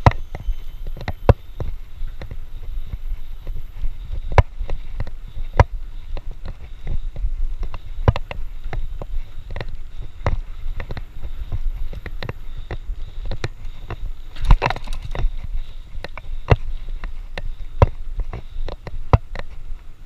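Mountain bike riding over a dirt trail, heard from a camera mounted on the bike: a steady low rumble of tyres and wind with frequent irregular clicks and rattles as the bike goes over bumps, and a denser burst of rattling about fourteen seconds in.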